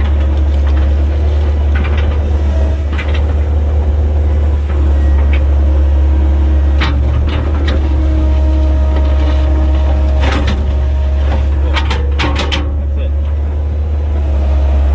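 Komatsu 120 excavator running steadily under load, a low engine drone with a hydraulic whine that shifts pitch as the boom and bucket move. Several sharp knocks and scrapes, clustered around the middle and later part, come from the bucket working against limestone rock in the trench.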